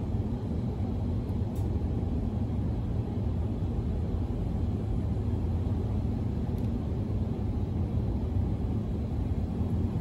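Wind buffeting the microphone outdoors: a steady low rumble with no pauses.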